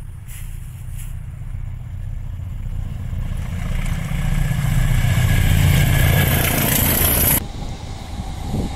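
A diesel locomotive hauling a train approaches, its low engine rumble growing steadily louder as wheel and rail noise builds. About seven seconds in the sound cuts off abruptly and gives way to a quieter, more distant diesel engine rumble, that of Class 66 locomotive 66796.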